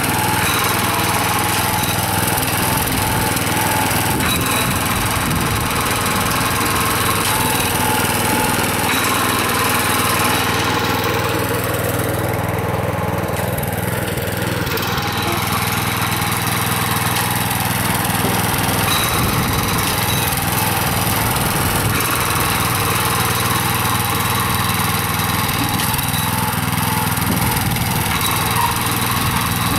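Neva MB2 walk-behind tractor's engine running steadily under load as it pulls a potato planter along the furrow.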